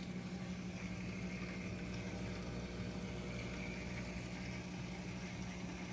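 Steady hum of an aquarium air pump, with a soft fizz of air bubbles rising through the tank water.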